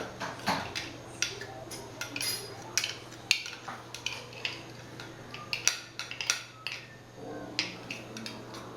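Kitchen utensils clinking and scraping against a mixing bowl and dishes in irregular sharp clicks and knocks, as ingredients are added to the bowl.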